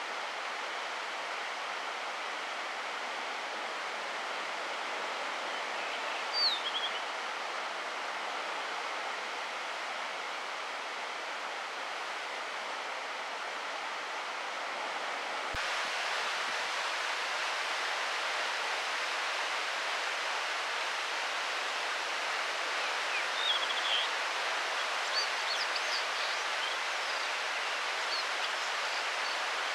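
Male blue rock thrush singing a few short, high phrases, one about six seconds in and a cluster from about 23 seconds on, over a steady rushing noise of the sea below.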